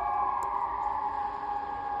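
Several electronic civil-defence sirens, Sonnenburg SES units by the siren map, sounding together during the Swiss siren test. They are heard as overlapping sustained tones, one of them slowly falling in pitch, as in the wail of the general-alarm signal.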